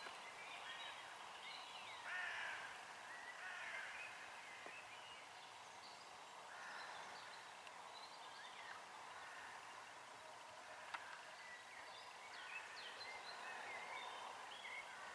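Faint birds calling in woodland: short chirps and whistles scattered throughout, with a few harsher calls, over a light background hiss. A single brief click about two-thirds of the way through.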